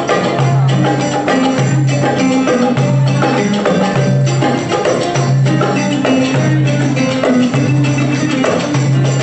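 A live band playing belly-dance music: percussion strokes in a steady rhythm over a low note that repeats about once a second, with a melody line above.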